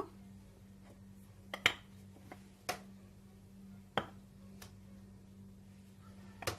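A few short, sharp clinks and taps of a spoon against spice containers and a bowl, spaced a second or more apart, over a faint steady electrical hum.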